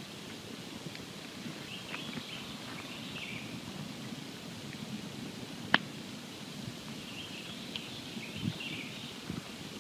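Wood campfire burning with a steady low rush of flames and scattered small crackles, and one sharp pop a little past halfway.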